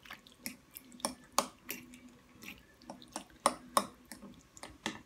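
Irregular small wet clicks and taps as drained green olives are dropped by hand into a bowl of chopped tomato and tuna salad and worked in.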